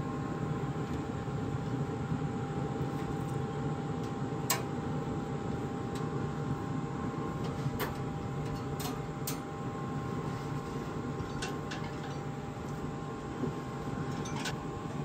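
Pit Boss Titan pellet grill running with its lid open: a steady fan hum with a faint whine. A few light clicks come as meat and gloved hands touch the metal grates.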